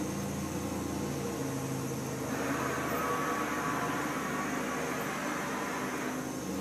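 Mori Seiki SL-65 CNC lathe running with a steady hum, and a whine that comes in about two seconds in and fades out near the end while the tool turret moves in rapid traverse.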